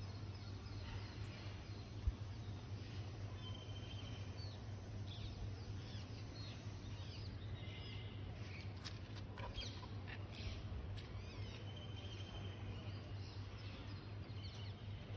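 Small birds chirping and twittering, many short high calls, over a steady low hum. A single sharp click about two seconds in.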